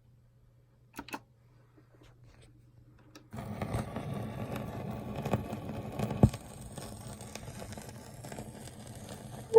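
Surface noise of a 78 rpm shellac record in its lead-in groove: a faint hum with a couple of clicks about a second in, then from about three seconds in a steady crackling hiss with occasional pops.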